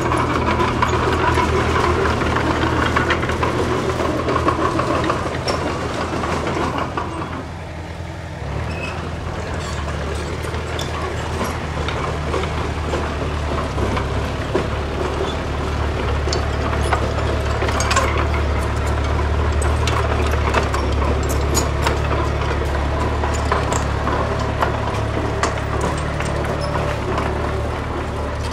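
Heavy diesel earthmoving machinery running steadily, with a brief drop about seven seconds in and scattered knocks and clatter in the second half.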